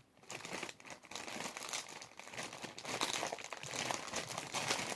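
Plastic grape packaging crinkling and crackling continuously as it is worked open by hand.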